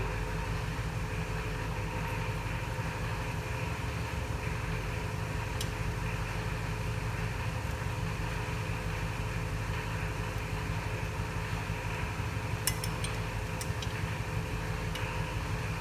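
Steady hum of a running machine with a constant mid-pitched tone. A few light clicks come about six seconds in and again around thirteen seconds, as steel main bearing shells are handled and seated in the aluminium engine block.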